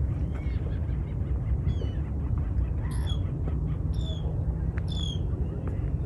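Waterbirds on a lake calling: three short, high calls about a second apart, with fainter chirps before them, over a steady low rumble.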